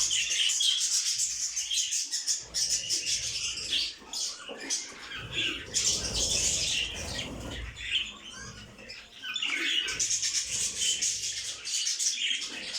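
Many small caged pet birds chirping and twittering at once in a dense, overlapping chatter, with a short lower rustle around the middle.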